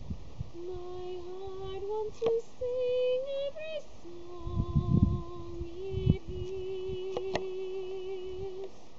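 A young woman singing unaccompanied in long held notes, the melody stepping up in pitch about two seconds in and settling back down after four. Low rumbles on the microphone come around the middle, with a few sharp clicks.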